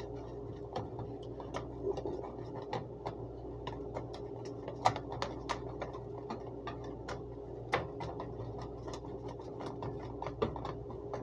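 Cake batter being stirred by hand in a plastic bowl: irregular clicks and scrapes of the utensil against the bowl, over a steady hum.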